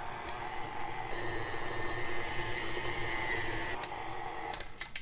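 KitchenAid tilt-head stand mixer running steadily with a whine as it beats eggs and vanilla into creamed butter and sugar. It shuts off about four seconds in, followed by a few sharp clicks.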